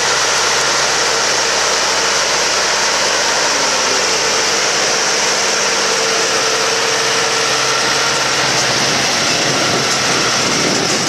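Farm tractor's diesel engine running steadily under load while pulling a seven-body chisel plough through the ground at working depth.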